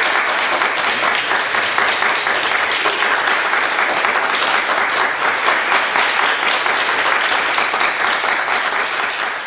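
Audience applauding steadily in a concert hall, easing off near the end.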